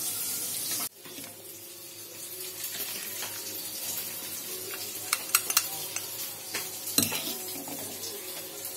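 Stainless-steel cookware clinking as boiled potatoes and cauliflower are tipped from a pressure cooker into a steel strainer, with several sharp metal clinks about five seconds in and a louder one about seven seconds in. It opens with a steady hiss that cuts off abruptly just under a second in.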